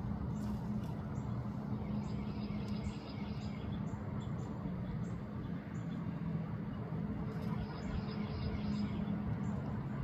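Low, steady mechanical hum, with faint runs of quick, high bird chirps about two seconds in and again from about seven and a half seconds.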